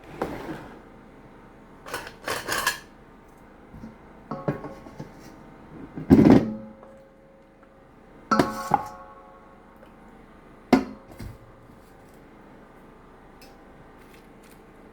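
Dishes clattering: plates and their covers knocked and set down in a series of about seven separate knocks, some ringing briefly, the loudest about six seconds in.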